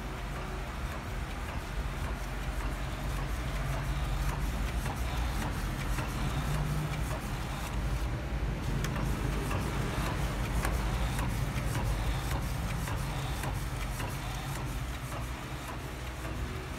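Epson L1300 inkjet printer printing, its motors running in a steady hum with scattered clicks. It is a little louder through the middle.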